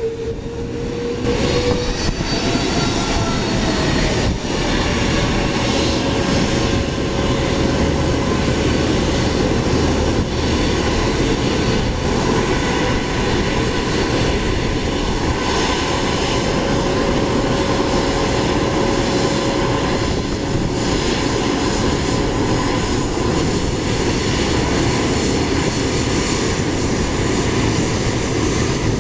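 Airbus A330's Rolls-Royce Trent 700 turbofans running at taxi thrust as the airliner rolls slowly past: a steady jet whine over a low rumble. The whine rises slightly in pitch over the first couple of seconds, then holds.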